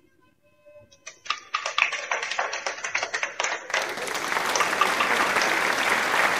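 Audience applause after the dance music stops: a few scattered claps about a second in that build into steady applause a little before the end.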